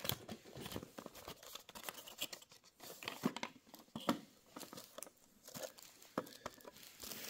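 A cardboard box and a clear plastic display case being handled and slid apart: faint rustling, scraping and scattered light clicks.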